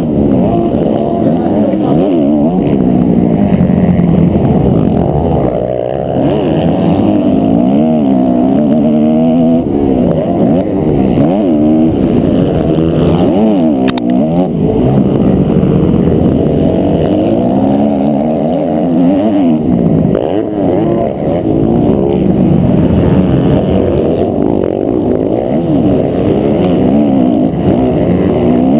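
A 250 cc four-stroke motocross bike's engine heard from on board, loud throughout. The revs climb and drop back again and again as the throttle is worked and the gears change around the track.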